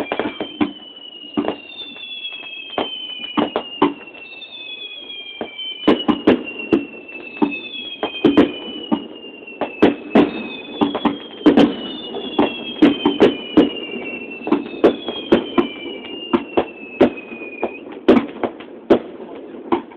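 Fireworks display: a rapid, irregular string of sharp cracks and bangs, with one high whistle after another sliding slowly down in pitch, each lasting a second or two.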